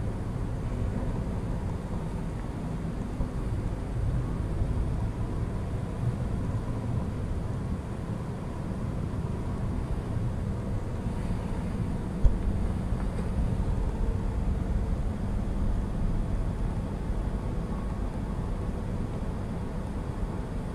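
Steady low background rumble with a faint hum, broken once by a single sharp knock a little past halfway.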